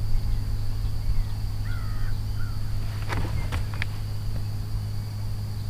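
Steady low electric hum from the boat, with a thin steady high whine above it. A few short bird calls come around the middle, including a curling call about two seconds in and brief sharp calls about a second later.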